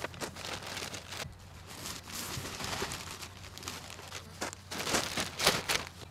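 Wood mulch being raked and spread over the ground: irregular crunching and scraping strokes mixed with footsteps, the loudest strokes near the end.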